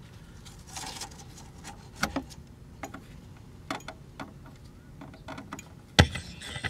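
Scattered light clicks and knocks of hands and tools handling the amplifier chassis, with one sharp, louder knock about six seconds in.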